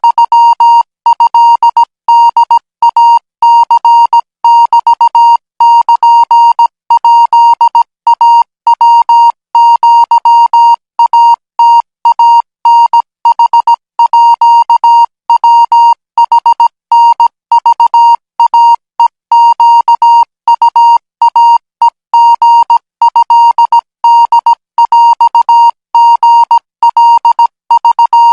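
Morse code practice signal: a single steady tone of about 1 kHz keyed on and off in dots and dashes at 20 words per minute, sending Thai Morse code.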